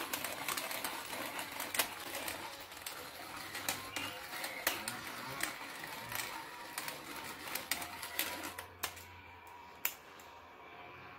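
Hand pepper mill grinding black peppercorns, a rapid, irregular crackle of clicks that stops about eight and a half seconds in, with one more click after.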